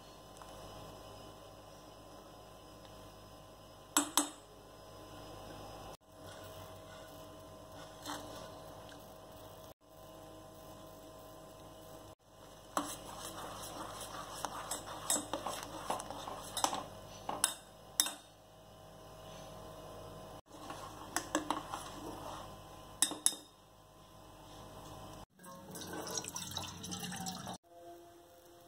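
A metal spoon stirring milk in a stainless steel pot, scraping and clinking against the sides in scattered bursts, over a steady electrical hum.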